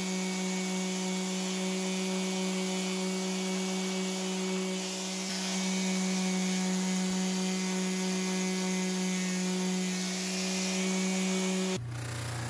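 Handheld power sander with an abrasive disc running at a steady pitch while it sands the steel horn of a railroad-rail anvil at fine grit: a motor whine over the hiss of abrasive on steel. Just before the end it cuts off abruptly, and a Craftsman bench grinder running a buffing wheel takes over with a lower, steady motor hum.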